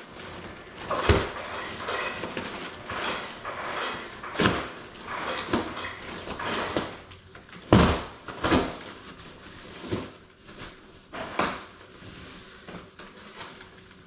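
A tall cardboard shipping box and its packing being handled, with rustling and scraping and several sharp knocks and thumps scattered through. The loudest thump comes about eight seconds in.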